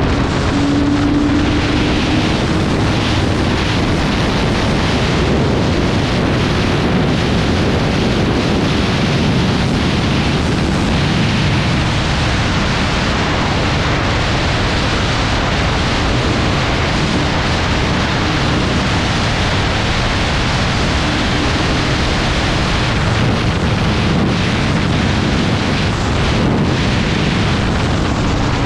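Heavy wind rush on the microphone over a BMW S1000R's inline-four engine cruising at freeway speed, its note holding steady under the wind.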